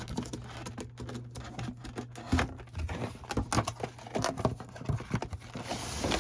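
Irregular rustling, scraping and light knocks of cardboard packaging being handled as a sleeve of canister firework shells is pulled out of its case.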